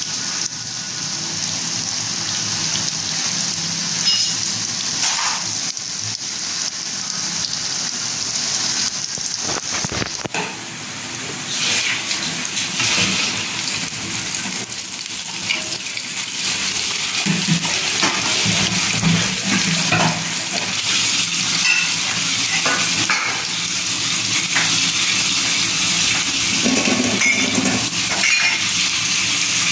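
Flour-coated tofu balls deep-frying in hot oil in a wok, a steady sizzle throughout, with a metal spatula now and then scraping and knocking against the pan as the balls are turned.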